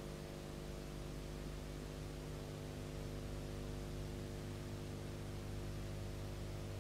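Steady electrical hum with a hiss behind it. It is the background noise of a transfer of a silent film, with no soundtrack of its own.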